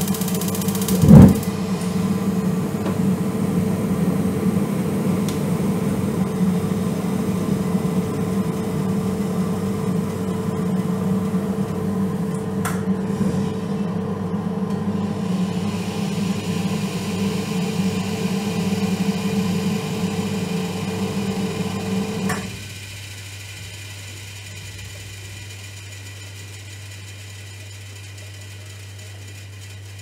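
Gas water heater running with a steady hum, a single loud knock about a second in. About 22 seconds in the sound drops abruptly to a much quieter steady low hum.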